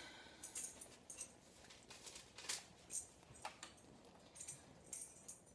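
Thin pages of a small Bible rustling as they are turned, a scattering of brief soft flicks.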